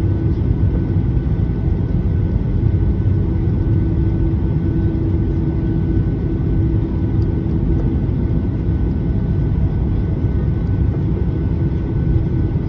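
Steady cabin noise of a Boeing 737-800 taxiing, heard from inside the cabin: its CFM56-7B engines at low thrust give a loud, even low rumble with a steady hum over it.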